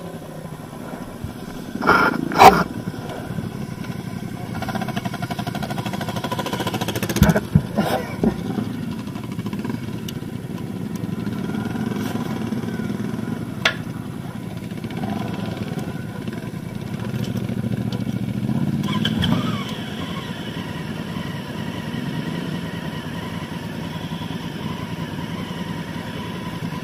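Motorcycle engine running steadily at low revs, with a few sharp knocks and clunks in the first half. The engine noise swells briefly about two-thirds of the way through, then settles back.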